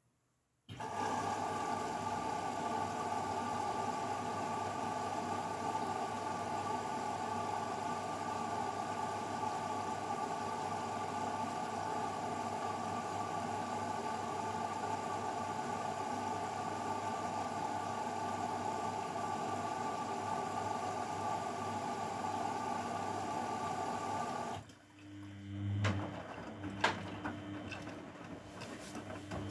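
Grundig washing machine during a rinse: a steady rush of water through the machine starts abruptly about a second in and cuts off near the end. It is followed by a few clicks and a low hum from the machine.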